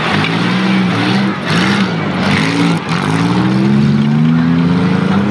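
Compact demolition-derby cars' engines revving hard on a dirt track, their pitch rising and falling. One engine climbs steadily in pitch over the last two seconds or so.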